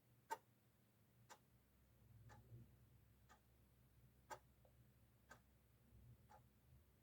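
Clock ticking faintly in a quiet room, one sharp tick about once a second.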